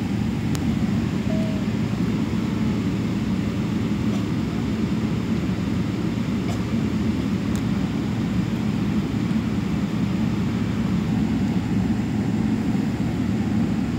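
Steady low roar of a Boeing 777-300ER jet airliner, its GE90 engines and airflow running without change.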